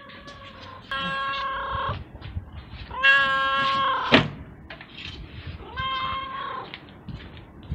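Tabby-and-white cat meowing three times, each a long drawn-out meow of about a second, the middle one the loudest, begging for food. A sharp knock comes right after the second meow.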